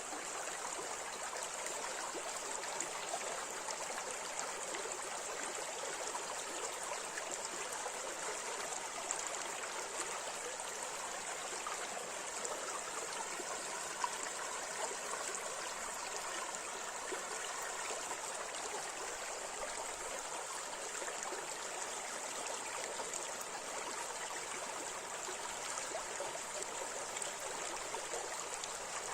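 River water flowing over rapids, a steady rushing and babbling with small splashes.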